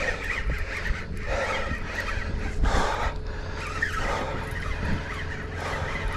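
Fishing reel drag squealing in short spurts, about five times, as a hooked barramundi pulls line off the reel.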